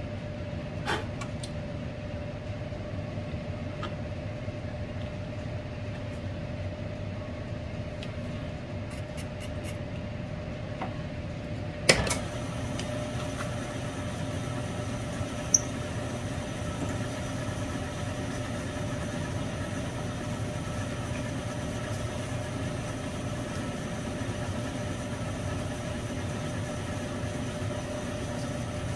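Milling machine running steadily with a constant whine, its end mill cutting into a metal crankcase half. A single sharp click about twelve seconds in.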